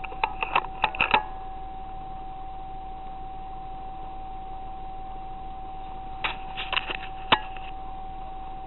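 Steady electronic whine from a digital night-vision riflescope, with two clusters of sharp clicks and taps, one about a second in and another around six to seven seconds in.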